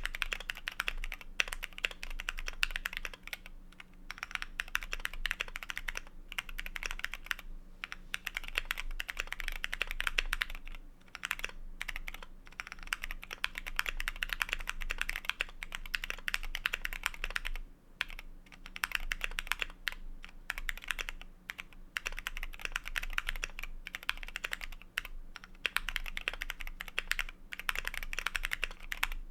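Typing on a Keychron Q1 mechanical keyboard with lubed and filmed Cherry MX Black linear switches and Drop MT3 doubleshot ABS keycaps: fast, continuous keystrokes in runs broken by short pauses every few seconds.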